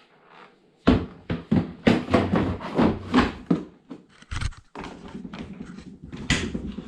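Handling noise from working on a tumble dryer's plastic panels and screws: a run of irregular clicks and knocks, loudest in the first half, with a few more knocks later.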